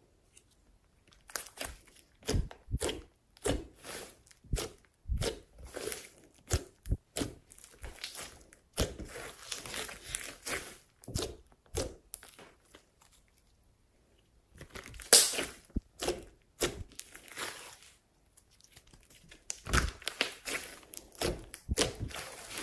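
Hands squeezing, pressing and stretching a large lump of glossy slime, giving irregular sticky crackles and pops, with a brief pause about halfway and the loudest pop just after it.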